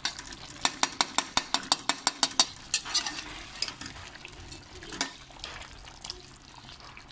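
A metal slotted spoon clicking and scraping against a steel pot as soft tomatoes are mashed into the simmering chicken karahi. A quick run of sharp clicks comes in the first couple of seconds, then sparser knocks, over a soft sizzle.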